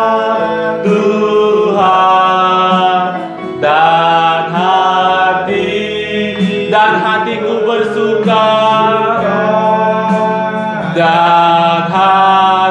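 Two men singing a slow Indonesian praise song in sustained phrases, the worship leader's voice in front and the keyboardist's behind it, with keyboard accompaniment.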